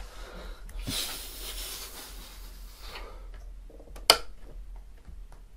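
Small clicks and taps of the Operation game's metal tweezers working at a piece in the plastic board, with one sharp click a little after four seconds. Before the clicks, about a second in, comes a soft hiss lasting a couple of seconds.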